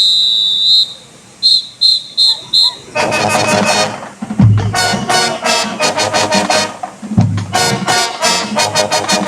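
A drum major's whistle gives one long blast and then four short ones. About three seconds in, the marching band's brass section comes in playing loudly, with heavy bass drum hits.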